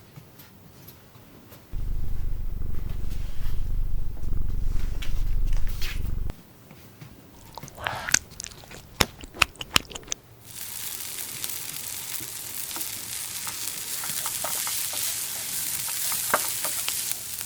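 Close-miked candy-eating sounds of Swedish gummy jelly: a low rumble for several seconds, then a string of sharp clicks and crunches with a short rising squeak, then a steady crackling hiss for the last seven seconds.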